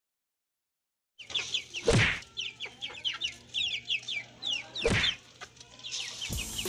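Native chickens in a wire cage clucking and peeping: a rapid run of short, high, falling notes, with two louder, sharper sounds about three seconds apart. It starts after about a second of silence.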